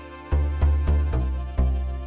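Instrumental background music: a run of notes, each struck sharply and fading, over a deep bass, with a short pause near the start.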